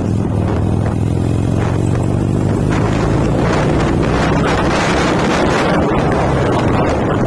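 Motorcycle engine running steadily at road speed, with wind buffeting the microphone; the wind rush grows louder from about three seconds in and partly covers the engine.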